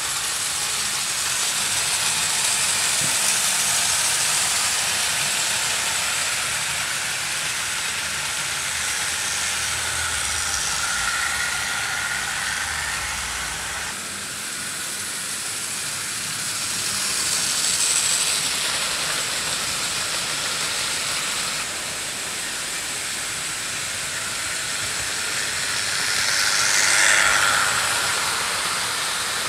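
OO gauge model trains running on the track: a steady whirring hiss of motors and wheels that swells as trains pass close by, loudest near the end as a rake of coaches goes past.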